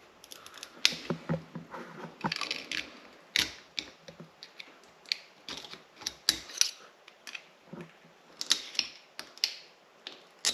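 Irregular sharp metal clicks and light knocks of a snap ring being worked into its groove inside a motorcycle fork tube.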